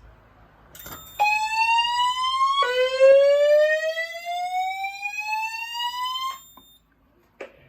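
Fire alarm voice evacuation system (Notifier VEC-25/50) sounding its whoop evacuation tone through a speaker after a click. The tone rises in pitch twice: a short rise, then a drop and a longer rise over about four seconds. It cuts off suddenly and is followed by another click near the end.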